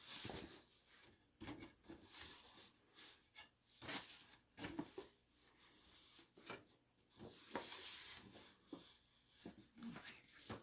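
Faint rustling of a folded paper lyrics sheet being unfolded and handled, with a few sharper crackles of the paper.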